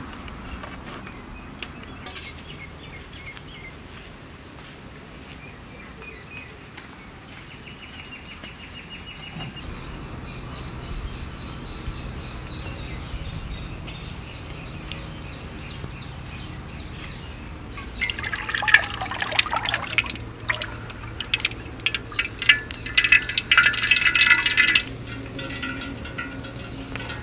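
Liquid being poured and splashing while cooking, with two louder spells of dense crackling about two-thirds of the way through and near the end.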